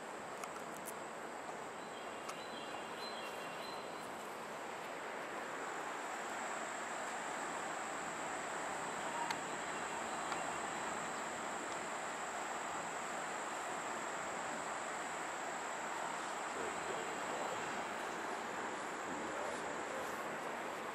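Steady rush of the Neversink River running over a shallow rocky riffle, a little louder after about five seconds, with a continuous high-pitched insect drone above it.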